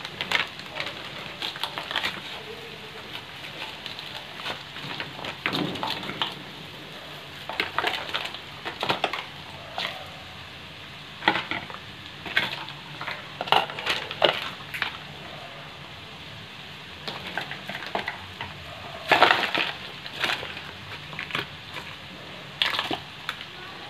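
Frozen mixed vegetables sizzling in hot oil in a nonstick wok, with irregular crackles and pops, sometimes in quick clusters.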